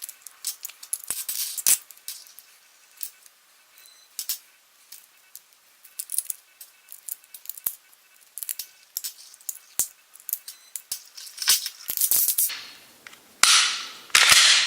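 Small metal parts of a Glock 19 Gen5 pistol clicking and clinking as it is field-stripped and its trigger connector is swapped. The clicks are scattered and sharp, with a louder, busier stretch of handling near the end.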